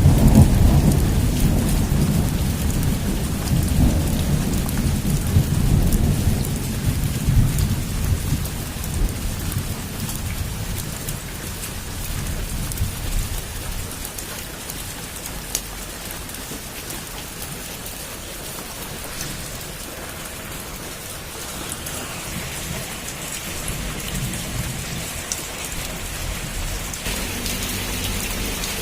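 Heavy rain falling on a roof, with a long roll of thunder rumbling over the first several seconds and fading away. The rain grows louder and hissier near the end.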